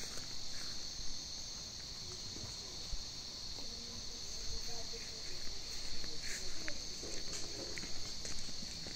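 A steady, high-pitched chorus of crickets chirring.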